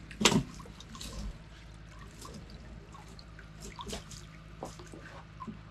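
Water dripping and splashing back into the lake as a wet collapsible fish-trap net is hauled up over the side of a small boat, in many small irregular drips with a louder splash just after the start.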